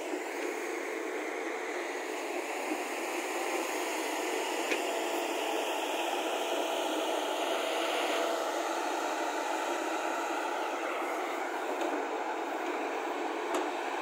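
Heavy construction machinery running steadily, a continuous engine noise with no changes in pace, and one short sharp knock near the end.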